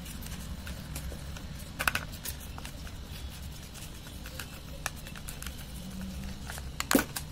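Plastic spoon stirring a thick glue-and-toothpaste slime mixture in a plastic bowl. Scattered clicks and taps against the bowl, with louder knocks about two seconds in and near the end, over a low steady hum.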